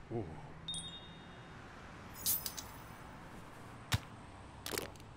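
Cartoon sound effects around a soda can: a short grunt, a bright chime-like ding, a fizzing hiss about two seconds in, a sharp click near four seconds, then short noisy bursts as the can is drunk.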